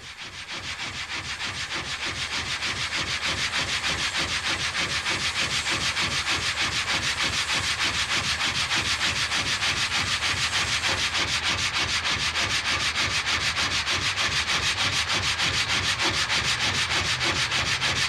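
Vertical frame saw (gang saw) with several blades cutting through a log: a steady, rasping noise that pulses with each fast up-and-down stroke of the saw frame. It builds over the first couple of seconds, then runs evenly.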